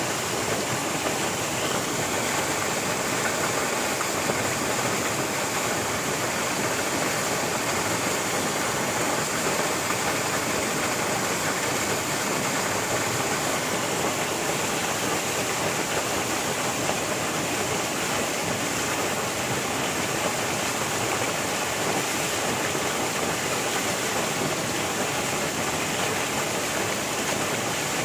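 River water rushing in a steady, unbroken flow.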